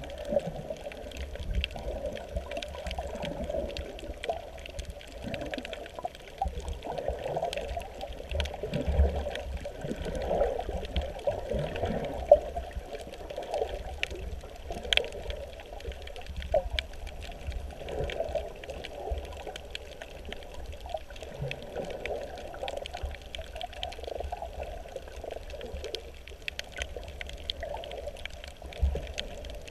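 Water sloshing and swirling around an action camera's waterproof housing underwater, an uneven wash with a low rumble and scattered faint clicks.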